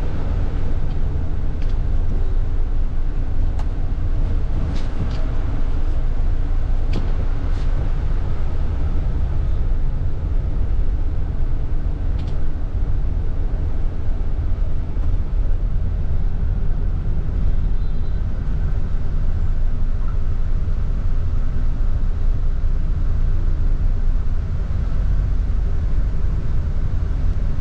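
Inside a moving city bus: steady low engine and road rumble, with a few brief clicks or rattles in the first half.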